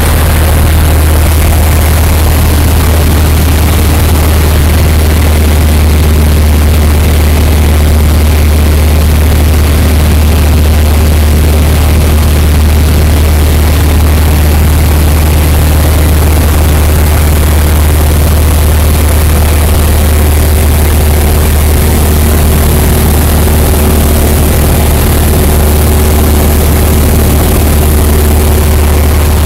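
Cessna 172's piston engine and propeller running steadily in flight, a loud, unchanging low drone heard inside the cockpit.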